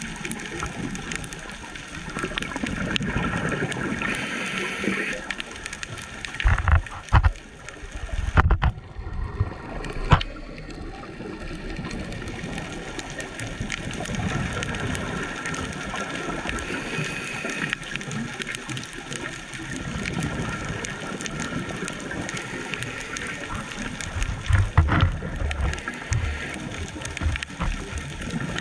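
Muffled underwater noise heard through a GoPro's waterproof housing: a steady hiss with bubbling, broken by a few low thumps about a quarter of the way in and again near the end.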